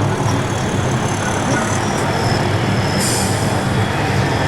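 Large-scale radio-controlled construction machines running, giving a steady, low engine-like drone with a hiss above it.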